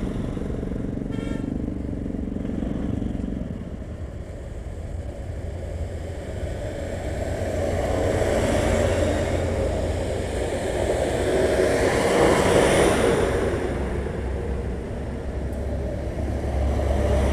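Large diesel trucks and a minibus passing close by one after another over a steady low engine idle, the noise of one heavy truck's engine and tyres swelling to its loudest a little past the middle. A short horn toot about a second in.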